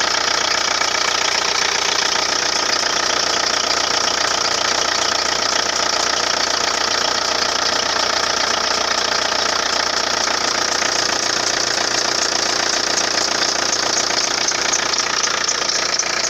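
Car engine running steadily with a continuous high whistle from its drive belt.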